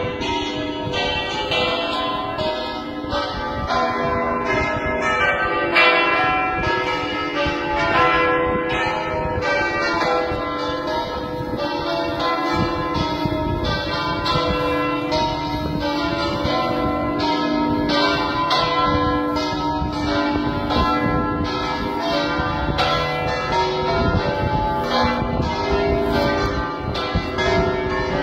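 Six church bells cast by the Cavadini foundry in 1953, tuned C, D, E, F, G, A with the largest about 1,742 kg, ringing all together as a plenum in the Veronese system. A continuous peal of overlapping, tightly spaced strikes, the tones of the different bells sounding at once.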